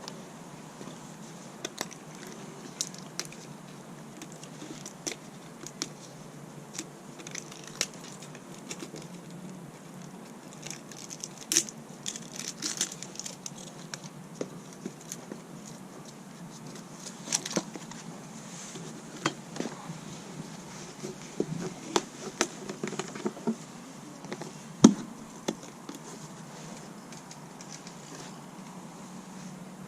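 Scattered light clicks, taps and rustles of tools and parts being handled during hand work, with one sharper knock about 25 seconds in.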